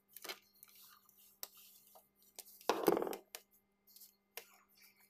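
Small clicks and clinks of wire, small parts and a screwdriver being handled on a workbench, with one louder scraping sound lasting about half a second, about three seconds in.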